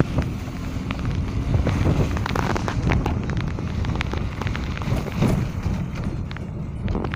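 A car driving on a mountain road, heard from inside the cabin: a steady low rumble of the car with wind buffeting the phone's microphone, and scattered light ticks.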